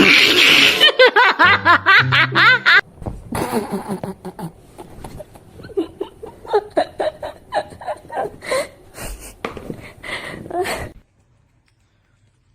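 People laughing hard in repeated short bursts, loudest in the first few seconds, then breaking off about eleven seconds in.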